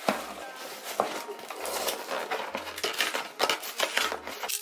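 Cardboard shipping box being handled and turned over on a wooden tabletop: scraping and rustling with a few sharp knocks, the loudest right at the start and about a second in.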